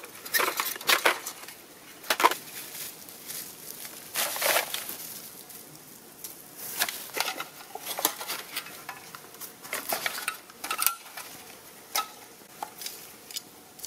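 Beer cans and plastic litter being picked up from the forest floor and stuffed into a nylon sack: irregular crinkles, clicks and rustles.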